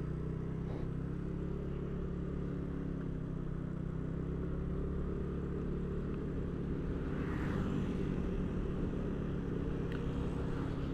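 Motorcycle engine running steadily while riding, briefly a little louder about seven to eight seconds in.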